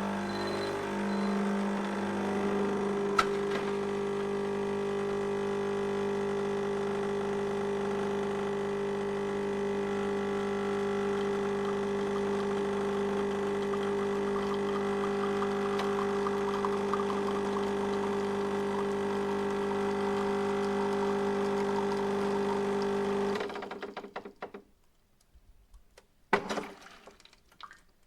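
Electric coffee grinder motor running with a steady hum while grinding, then switching off and running down about 23 seconds in. A few small clicks and rattles follow, with one sharp knock a little before the end.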